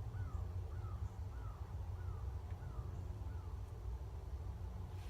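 A bird calling in a quick series of about six short falling calls, over a steady low rumble.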